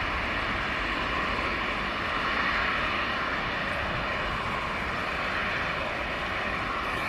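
Boeing 737-500 airliner's jet engines, a steady rush of noise that holds level throughout.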